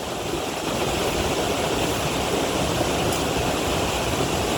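Steady rushing of creek water, an even noise without a break.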